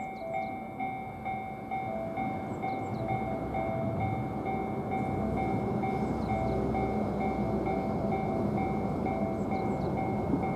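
413/455-series electric express train approaching on curving track, its running rumble growing louder from about two seconds in. A repeating two-tone electronic ringing, typical of a Japanese level-crossing bell, keeps sounding over the train.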